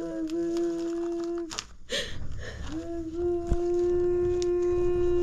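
A person's voice humming or singing two long, steady held notes at the same pitch, the second much longer, with a breath between.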